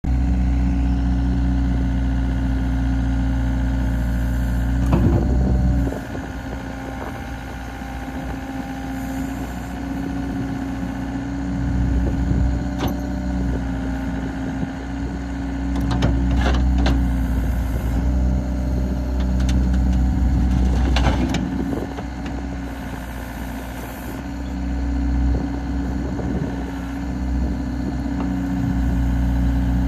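Volvo ECR58 mini excavator's diesel engine running while the boom, arm and bucket are worked hydraulically, its loudness dipping and rising with the load. There are a few sharp knocks from the bucket and linkage, a cluster of them in the middle.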